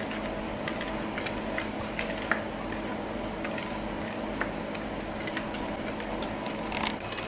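Wire balloon whisk stirring batter in a glass bowl, gently rather than beating: light, irregular ticking of the wires against the glass over a steady background hum.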